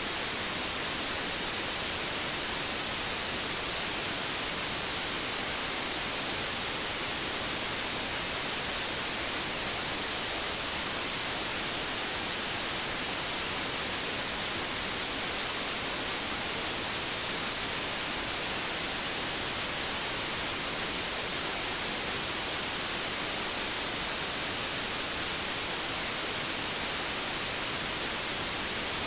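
Steady white noise: an even, unchanging hiss, brightest in the high end, played as a sleep aid for babies.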